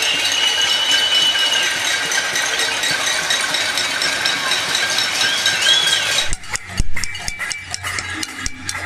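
Many pots and pans being banged at once in a cacerolada protest, a dense metallic clatter with a high held tone over it at first. About six seconds in it changes abruptly to fewer, separate bangs on a pot.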